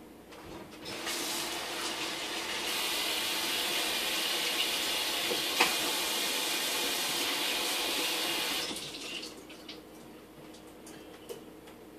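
Water running steadily, growing louder about two seconds in and stopping a little before the end, with a single sharp click partway through.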